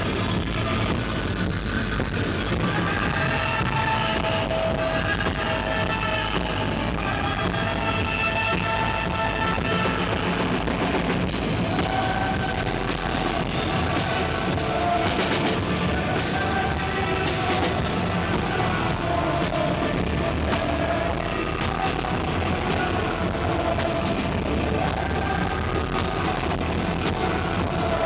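Rock band playing live: guitar and drum kit with a singing voice over them.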